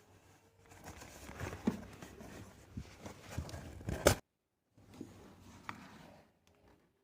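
Packing and handling noises: cardboard and packing material rustling and knocking, with irregular clicks that end in one sharp knock about four seconds in.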